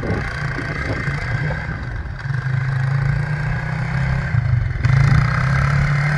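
Quad (ATV) engine running steadily, growing louder about two seconds in and again about five seconds in.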